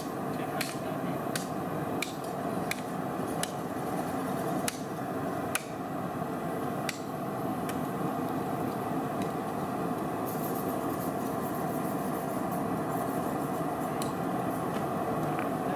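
A cleaver chopping through a hog's head and bone on a wooden pallet. Sharp chops land at irregular intervals, about one a second through the first seven seconds, then only occasionally, over steady background noise.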